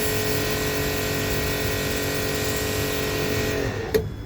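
A small electric machine running steadily with a strong hiss and a steady motor hum, winding down about three and a half seconds in, then a sharp click.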